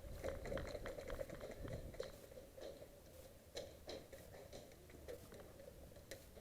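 A player moving across an indoor floor: irregular footsteps and gear rustle with scattered sharp clicks and light knocks, over a faint steady hum.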